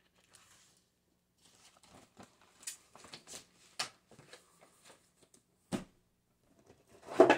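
Handling of paper planners and packaging: light rustles, page flips and small taps and clicks, then a louder rustle just before the end as an item is pulled from a cardboard box.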